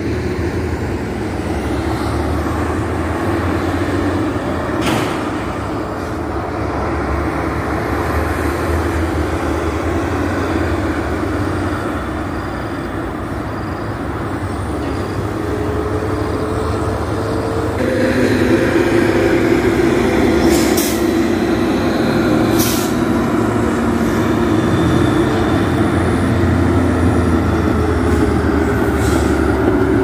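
Road traffic on a dual carriageway: a steady drone of engines and tyres that grows louder a little past halfway as heavy lorries pass, with a few brief hisses.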